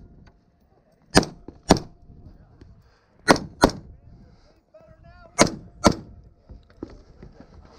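Semi-automatic AR-style rifle fired in three quick pairs, six shots in all, each pair about half a second apart.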